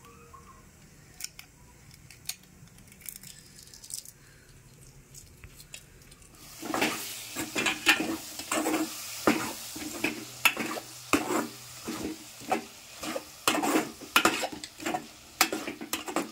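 For the first few seconds, faint crackles of a boiled egg's shell being peeled by hand. From about six seconds in, onions, tomatoes and green chillies sizzle in oil in a metal pot while a steel ladle stirs them, scraping and clinking against the pot about twice a second.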